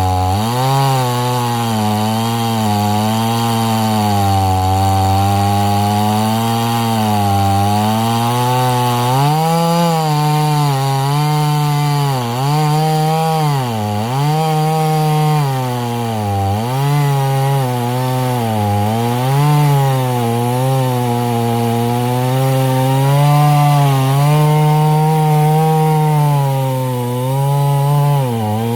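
Husqvarna 50 Rancher single-cylinder two-stroke chainsaw running at high revs. Its pitch sags and recovers every second or two, as it does when the chain is cutting through wood.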